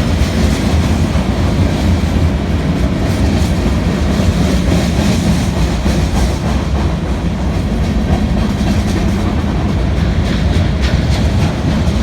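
Freight train rolling past: a steady rumble of steel wheels on the rails, with occasional clacks over the rail joints.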